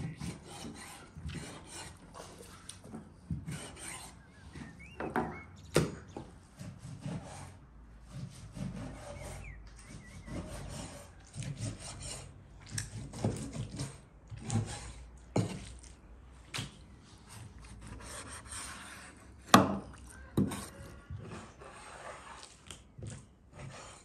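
Kitchen knife cutting raw beef tripe on a wooden cutting board: irregular slicing and scraping strokes, with the blade knocking on the wood. One sharp knock, about three-quarters of the way through, is the loudest.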